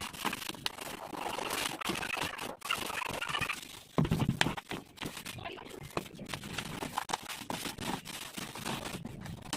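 Packing and handling noises: irregular knocks and clicks over crinkling and rustling, with a heavier thump about four seconds in.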